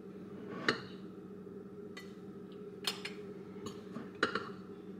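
A metal spoon clinking against a stainless steel mixing bowl while powdery ingredients are stirred in by hand, several sharp taps spaced about a second apart. A steady low hum runs underneath.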